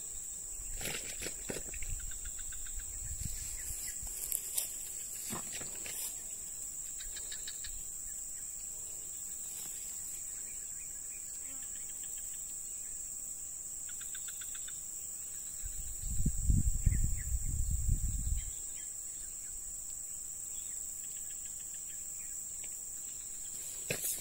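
Insects calling in a steady, unbroken high-pitched drone. A few faint clicks come in the first seconds, and a low rumble lasting about two seconds, the loudest sound, comes a little past the middle.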